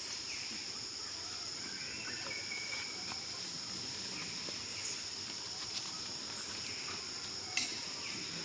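A steady, high-pitched drone of insects running throughout, with a few brief high squeaks and a sharp click about three quarters of the way through.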